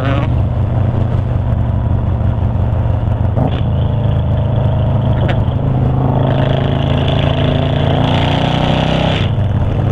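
V-twin cruiser motorcycle engine running at road speed, with wind rushing over the microphone. The engine pitch climbs gently in the second half and drops about nine seconds in.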